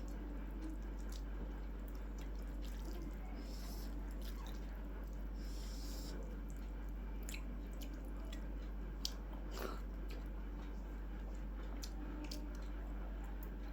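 Quiet eating sounds: chewing with scattered wet mouth clicks and smacks over a steady low hum, with one sharper click about nine seconds in.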